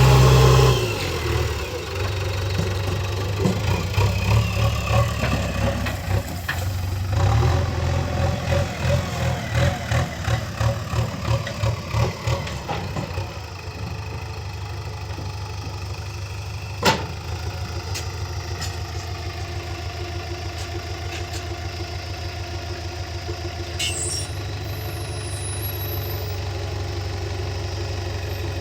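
JCB backhoe loader's diesel engine running with a pulsing, rising and falling note while the machine works, then settling to a steady idle about halfway through. A single sharp knock comes shortly after it settles.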